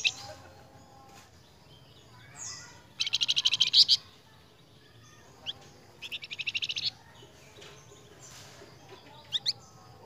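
Caged flamboyan songbird singing in short, fast, high trills of rapidly repeated notes: a loud burst about three seconds in, another about six seconds in, and two quick rising notes near the end.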